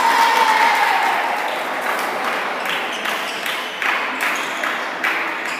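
Spectator noise in a large, echoing badminton hall: a falling shout or cheer at the start dies away into crowd noise, and several sharp knocks come later on.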